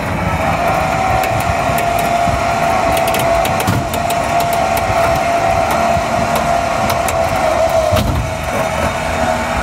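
Electric cable winch running steadily under load, with a steady whine, drawing a motorcycle loading platform up onto a pickup's tailgate. A few light clicks are scattered through it.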